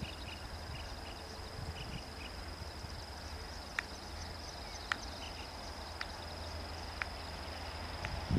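Rural trackside ambience: a steady high-pitched insect drone with a short sharp chirp about once a second in the second half, over a faint low rumble.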